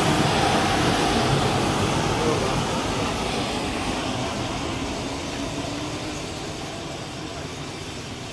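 Helium gas rushing out of an MRI scanner's quench vent pipe during a controlled quench of its superconducting magnet, as the liquid helium boils off: a loud, even hiss that slowly dies down.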